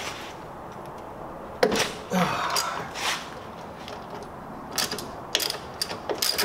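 Hand tools on a car's strut-tower bolts: a knock and some metal handling noise, then from about five seconds in a socket ratchet clicking in quick short strokes as a strut-tower bolt is loosened.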